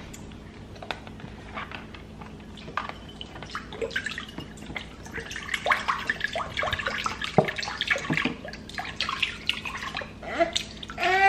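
Chicken broth pouring and splashing from a carton into a slow cooker's crock, with scattered clicks and knocks from handling the carton.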